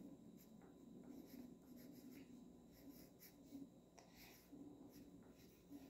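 Faint scratching of a drawing tool on paper as lettering is written, in short, irregular strokes.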